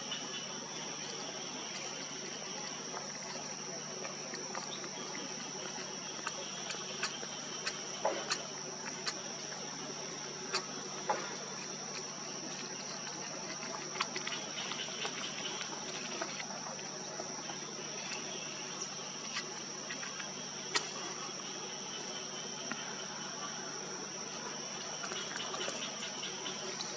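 Steady high-pitched insect drone, with a lower buzzing that comes and goes and scattered faint clicks.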